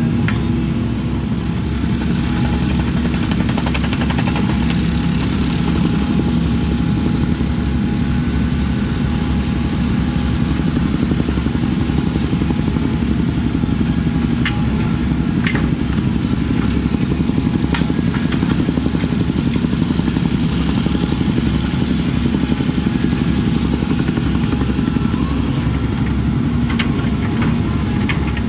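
Diesel engine of a compact earthmoving machine running steadily under work, with a few sharp clanks of metal or block.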